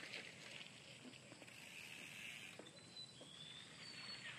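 Near silence with faint outdoor background, broken in the second half by a few short, thin, high whistles from birds.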